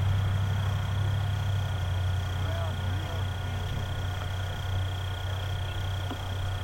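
A steady low hum with a thin, steady high whine over it, and faint distant voices now and then in the middle.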